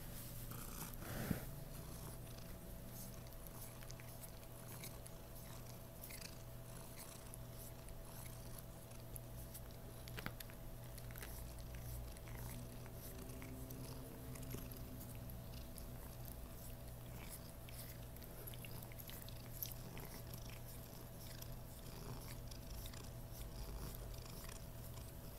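Domestic cat purring steadily while being stroked, with small clicks and rustles of the hand on its fur and collar throughout.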